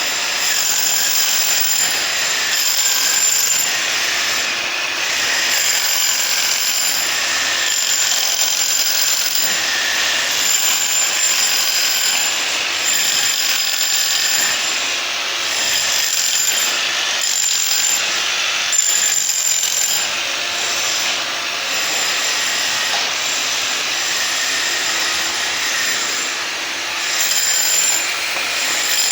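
Electric demolition hammer running almost without a break, its bush-hammer bit rattling against concrete to texture the surface. A high steady whine rides over the hammering, dropping out briefly a few times.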